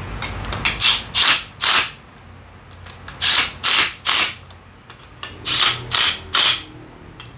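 Cordless impact driver with a socket running in short bursts on the bolts of a motorcycle rear sprocket: three groups of three quick bursts, the groups about two seconds apart.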